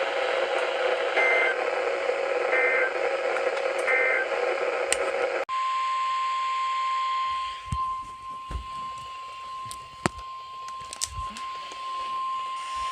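Weather radio static carrying three short two-tone data bleeps of an EAS/SAME end-of-message burst. After an abrupt cut, a steady NOAA Weather Radio 1050 Hz warning alarm tone sounds for about eight seconds over faint static.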